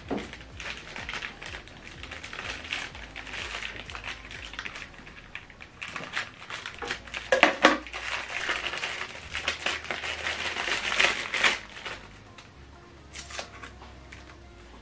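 Clear plastic packaging bag crinkling and crackling as it is handled and opened to take a cable out. It is loudest in the middle and dies down near the end.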